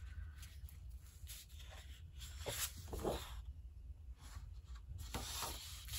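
Sheets of patterned designer series paper rustling and sliding against each other as they are lifted, turned over and laid down by hand. Several soft swishes come and go over a low steady hum.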